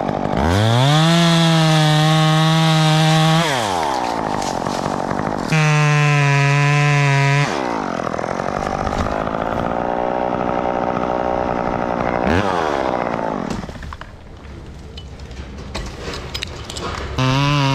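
Two-stroke top-handle chainsaw revved to full throttle twice, then cutting into an oak limb with its engine note held lower under load. It drops back to idle and revs again near the end, its pitch wavering.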